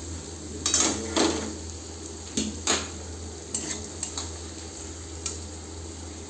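A spatula scraping and knocking irregularly against a metal kadai as rice, onion paste and garlic paste are stir-fried in mustard oil and ghee, with a steady sizzle of frying underneath.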